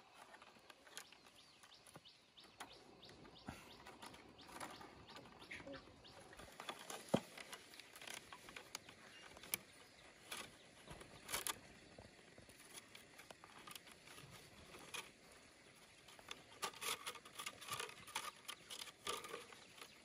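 Thin split-bamboo strips rustling and clicking softly against each other as they are woven by hand, with scattered faint ticks.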